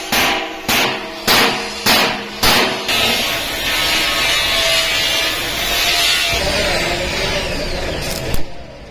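A hammer striking sheet iron five times, evenly about every half second, each blow ringing, then a power tool running on metal with a steady hiss for about five seconds that stops near the end.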